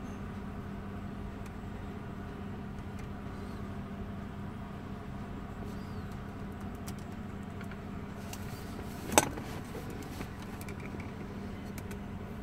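Steady low hum inside a car's cabin, with a single sharp click about nine seconds in.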